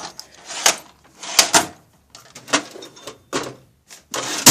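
Rummaging through stored items: a run of about a dozen short, irregular knocks, rattles and scrapes as objects are picked up and moved aside.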